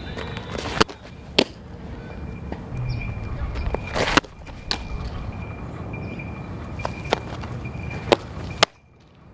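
Softball practice sounds: a series of sharp smacks, like a softball popping into a glove, spaced irregularly over outdoor background noise. The sound cuts off suddenly near the end.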